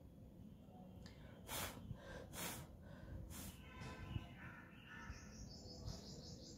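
Faint outdoor ambience with birds calling: a run of short repeated calls about four to five seconds in and a fast high chirping near the end. Earlier, three short rustles of fingers working through hair.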